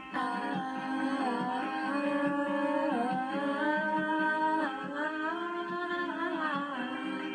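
A song playing, its vocal line held in long notes that slide up and down in pitch, sung along to.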